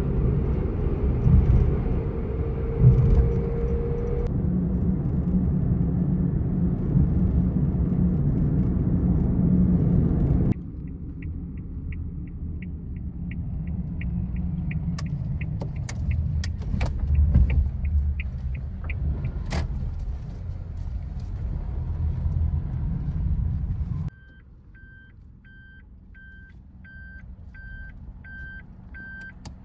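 Small Suzuki car heard from inside the cabin: steady road and engine noise while driving. About a third of the way in it turns quieter as the car slows, with a regular turn-signal ticking and a few clicks. Near the end the engine noise drops away and a dashboard chime beeps over and over.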